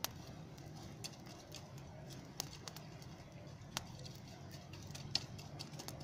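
Fire of glowing embers crackling: irregular sharp pops about once a second, with fainter ticks between, the loudest pop about five seconds in, over a steady low rumble.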